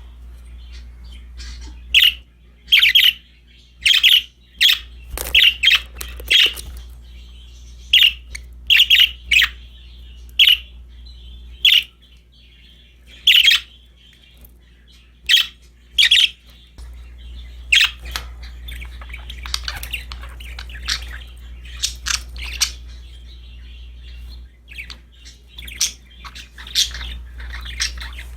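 Budgerigars calling: a string of short, loud, sharp chirps and squawks in the first half, then quieter, busier chattering later on, over a steady low hum.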